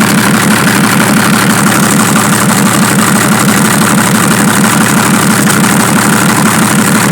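Perkins diesel engine of a Chevrolet D60 truck idling steadily, with an even rapid beat.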